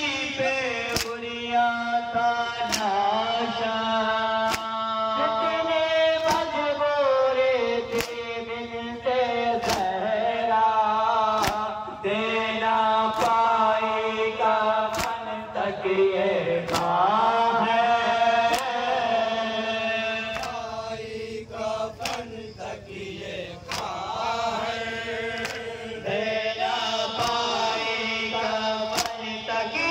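Male reciters chanting a Shia nauha (mourning lament) in unison through microphones, in a slow, drawn-out melody. Sharp strokes of the mourners' matam, hands beaten on chests, fall in time about every one and a half to two seconds.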